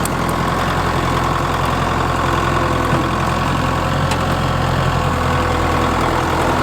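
Kubota MX5200 tractor's diesel engine running steadily.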